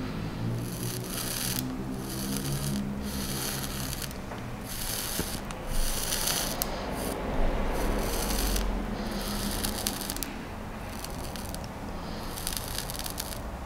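Shredded food sizzling against the bare heated coil of a rebuildable vape atomizer, in a series of short hissing bursts that start and stop sharply as the coil is fired again and again.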